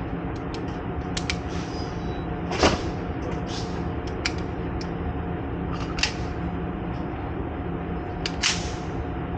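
A steady mechanical hum under a scatter of sharp clicks and knocks, the loudest about two and a half seconds in, with two more strong knocks around six and eight and a half seconds.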